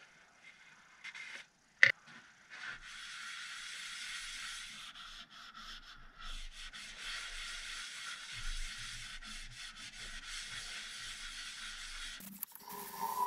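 A cloth or applicator rubbing over the face of a stationary zebrawood platter as finish is wiped on, a steady hiss. There is one sharp click about two seconds in. Near the end the wood lathe starts and runs with a steady hum.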